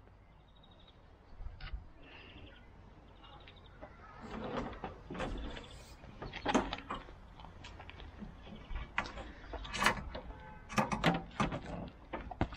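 Ratchet tie-down straps being worked on a car trailer: a series of clicks, knocks and clanks, with quick runs of ratchet clicks near the end. Faint bird chirps early on.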